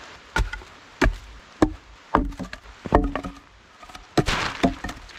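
Wood being struck: a series of sharp wooden knocks spaced roughly half a second to a second apart, some with a short hollow ring, then a brief scraping rustle and two more knocks near the end.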